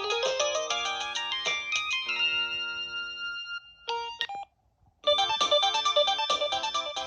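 Samsung SGH-M110 mobile phone playing its built-in ringtones. One melody ends on a held chord, a short burst of notes follows, and after a brief silence a new, busier ringtone starts about five seconds in.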